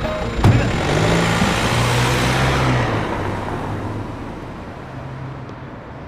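A thump about half a second in, then a car drives off: its rushing noise and low engine hum swell and then fade away.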